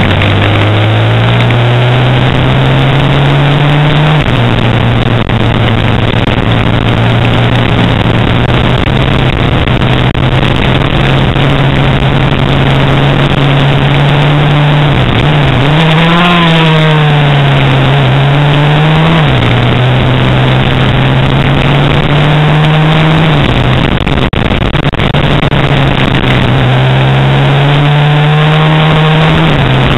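Motorcycle engine pulling hard on a circuit, its pitch climbing slowly and dropping in a step at each upshift, with a brief dip and sharp rise about halfway through. Heavy wind rush on the bike-mounted camera runs loud under the engine.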